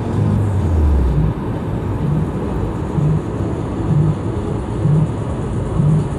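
Steady road and engine noise of a car driving at speed on a highway, heard from inside the cabin. A low pulse repeats about once a second underneath, and a low tone falls away in the first second.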